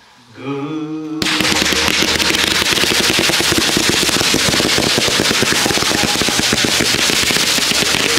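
Large firework battery going off: about a second in it erupts into a loud, dense, unbroken volley of rapid shots and crackles, like machine-gun fire.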